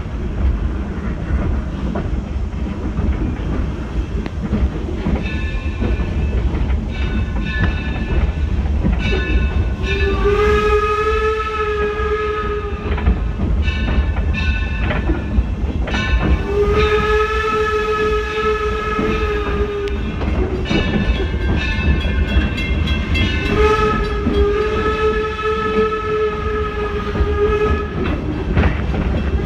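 Steam whistle of the Torch Lake steam locomotive blowing three long blasts of three to four seconds each, with fainter whistle tones before them, over the steady rumble and rail clatter of the moving train.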